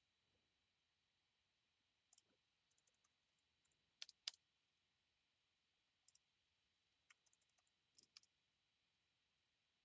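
Computer mouse clicking in quiet, scattered clicks and small clusters with pauses between, the loudest double click about four seconds in.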